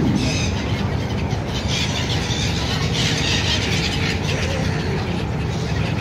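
A large flock of gulls calling, a dense chorus of shrill cries that thickens about halfway through, over a steady low rumble of engines.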